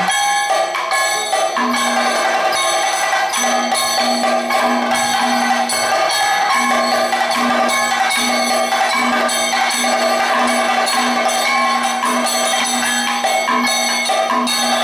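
Kathakali percussion accompaniment: chenda and maddalam drums beating rapidly under ringing metal cymbals, without singing.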